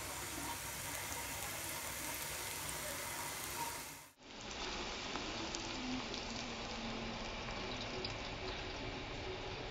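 Butter sizzling under slices of bread frying in a pan: a steady hiss. It cuts off abruptly about four seconds in and a similar steady hiss follows.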